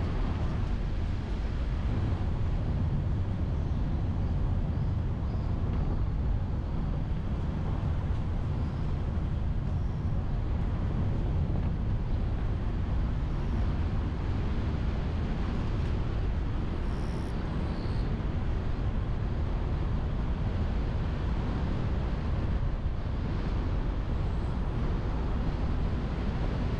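A car driving along a road, heard through a car-mounted camera's microphone: a steady low rumble of road and wind noise.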